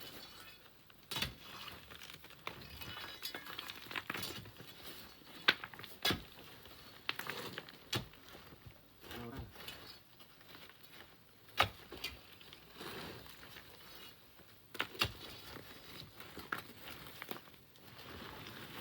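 Loose pebbles and small stones clattering as they fall and knock together, with sand pouring and rustling between the irregular sharp knocks.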